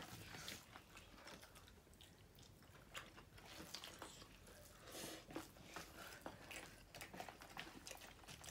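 Faint chewing and soft crunching of a person eating, with scattered small clicks.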